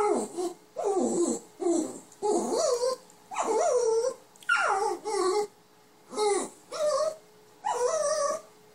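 Dachshund puppy 'talking': about nine short whining, grumbling calls in a row, each bending up and down in pitch, as it begs for a bone.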